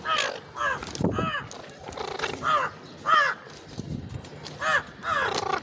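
Ringneck parakeet giving a series of short, harsh squawking calls, each with an arched rise and fall in pitch, in irregular groups of one or two.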